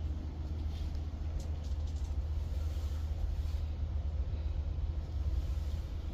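Steady low rumble throughout, with a few faint rustles of flag cloth being folded about a second and a half in.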